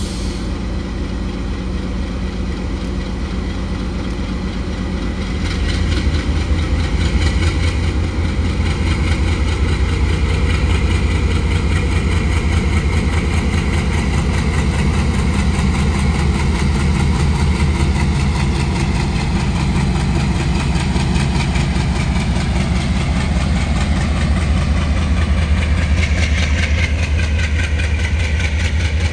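Alco WDM-3A diesel-electric locomotive's turbocharged V16 ALCO 251 engine chugging slowly as it hauls a passenger train away. It grows louder about five seconds in.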